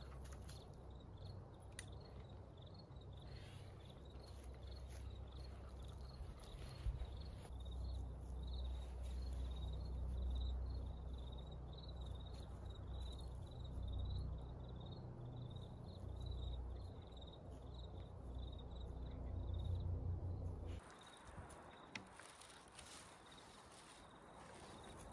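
Insect chirping in a steady rhythm of about three short high chirps a second, over a low rumble that stops abruptly about twenty seconds in.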